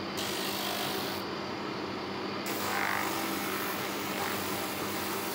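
Homemade spindle drum sander running with a steady motor hum. A small wood block is pressed against the spinning sanding drum twice, giving a rasping hiss for about a second, then again from about two and a half seconds in.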